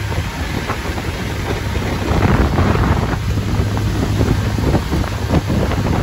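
Mikelson 57 yacht underway at speed: a steady low drone from its twin 800-horsepower MAN diesel engines, mixed with wind buffeting the microphone and the rush of water. It gets a little louder about two seconds in.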